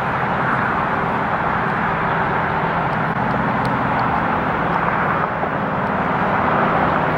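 Steady drone of distant engines, an even rumble with a low hum that does not change.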